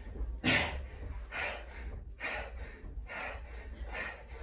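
A man breathing hard through a set of press-ups, with a short forceful exhalation about once a second, five in all.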